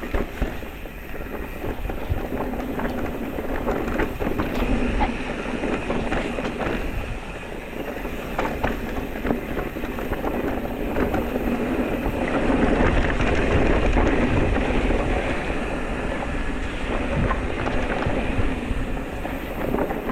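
Electric mountain bike rolling over a rough trail: a steady rattle of many small knocks and clicks from the bike over the bumps, with a low wind rumble on the microphone.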